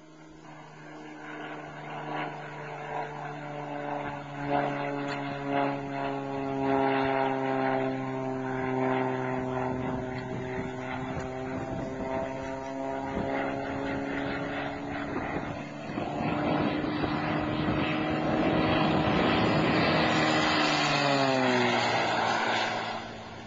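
Cessna AgTruck crop-duster's propeller and six-cylinder piston engine droning, growing louder as it approaches and banks overhead. It then comes by in a close low pass, with the pitch dropping sharply as it goes past, and the sound stops suddenly near the end.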